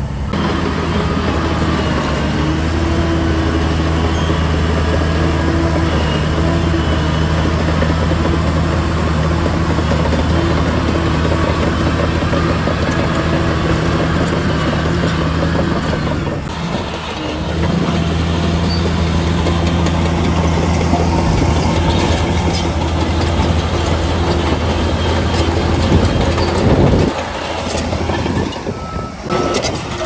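Heavy diesel engine of a construction machine running steadily at a constant pitch. It dips briefly a little past halfway and gets louder shortly before the end, then falls back.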